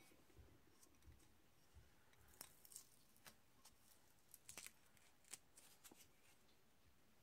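Near silence broken by faint, scattered clicks and light taps as iron pottery-wheel parts are handled on a workbench, with a few soft thumps early on and a cluster of sharp clicks through the middle.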